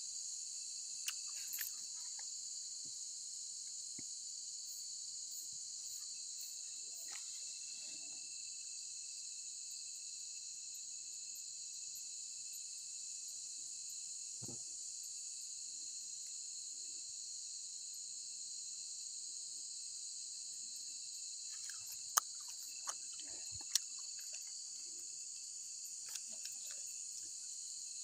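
Steady high-pitched shrill of a night-time insect chorus. A few sharp clicks stand out about two-thirds of the way through.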